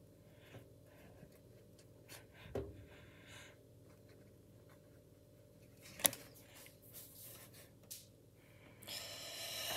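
Quiet room with a few faint, scattered clicks and rustles of small handling noises, the sharpest about six seconds in, and a soft breath-like hiss near the end.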